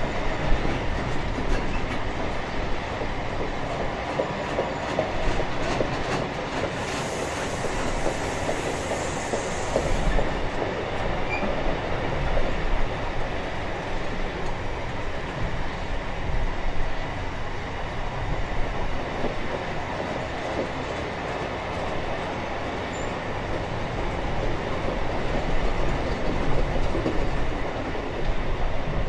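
Long freight train of empty wagons rolling steadily past on the track, wheels running over the rails.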